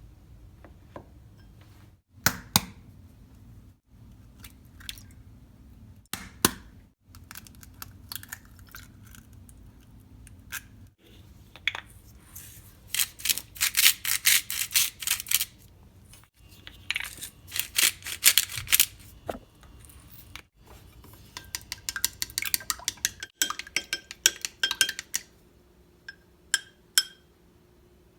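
Rapid runs of clinking and tapping from kitchen utensils against dishes, with scattered single clicks and knocks between them. The dense clicking comes in three long bursts in the middle and later part.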